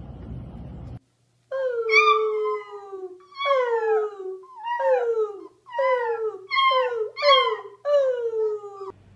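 A man and a beagle puppy howling together: a run of about seven howls, each falling in pitch, starting about a second and a half in.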